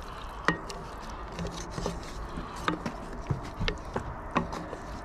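Wooden spoon stirring a simmering curry in an enamel pot, giving scattered irregular clicks, taps and scrapes over a faint steady hiss.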